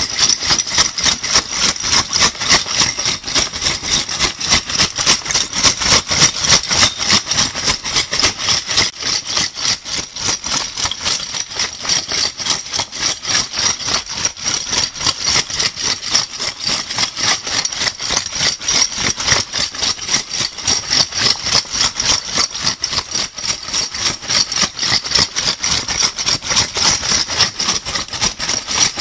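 A bag of metal crown bottle caps being shaken steadily, the caps clattering against each other in a rapid, even rhythm of about four shakes a second.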